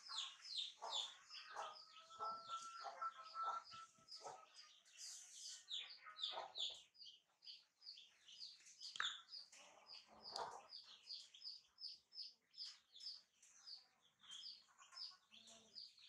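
Faint chickens and other caged birds: rapid high chirping about four times a second throughout, a long held call a couple of seconds in, and some clucking.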